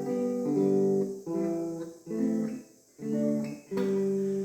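Delta Po Boy archtop tenor guitar played unplugged, strummed through a short run of chords with brief breaks between them. It sounds slightly out of tune because its new strings haven't settled yet.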